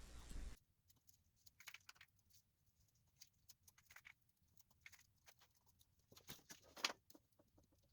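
Faint, scattered light clicks and rustles of small hand work with wood: a thin shaving being glued onto a chair stretcher's tenon. A slightly louder click or scrape comes near the end.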